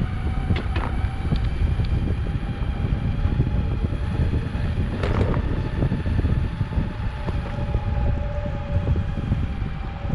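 Wind rushing over an action camera's microphone and the low rumble of a Metroboard electric skateboard's wheels rolling over paving while riding, with a faint steady whine and a couple of brief clicks.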